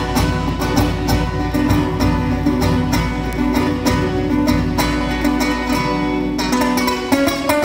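Small acoustic string band playing live, several acoustic guitars plucked and strummed, in an instrumental passage without singing.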